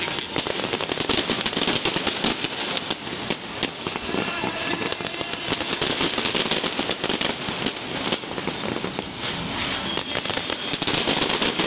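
Aerial fireworks going off in a dense, rapid barrage of crackling pops and bangs, many a second without a break, growing louder near the end.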